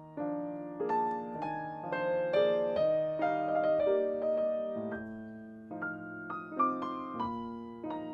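Background piano music: a slow run of struck notes and chords, each fading after it is played.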